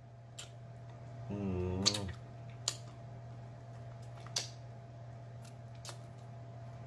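Close mouth sounds of a man eating turkey wing: a few sharp wet smacks and clicks of lips and tongue as he sucks meat off the bone, and a hummed "mmm" about a second and a half in. A steady low hum runs underneath.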